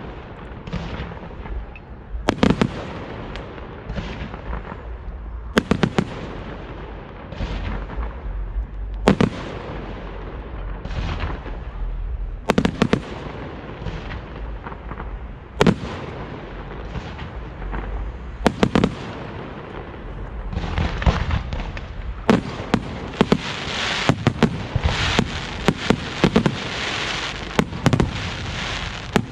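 Aerial firework shells bursting with sharp bangs every second or two. About two-thirds of the way through, a dense crackling sets in, with rapid pops over it.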